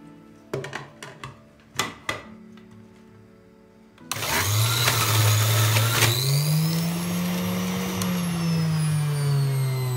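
A few light knocks, then about four seconds in an electric kitchen blender starts and runs loudly, its motor pitch rising and then slowly falling.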